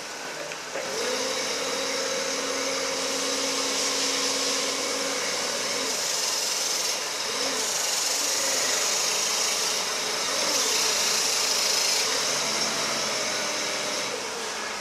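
LPG engine of a Toyota 7FGF25 forklift running, picking up about a second in to a steady higher hum over a hiss as the hydraulic mast raises and lowers the forks. The engine pitch rises and falls several times in the second half.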